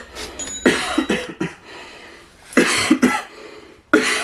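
A person coughing hard: three harsh bursts of coughing, about a second in, a little past halfway, and again near the end.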